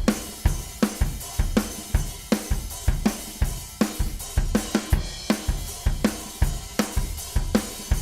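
Drum kit playing a steady groove: kick drum about twice a second, with snare hits and a constant wash of hi-hat and cymbals.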